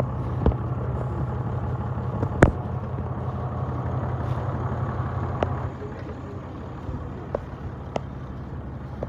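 A car engine idling with a steady low hum that gets quieter a little before six seconds in. A few sharp clicks or knocks come over it, the loudest about two and a half seconds in.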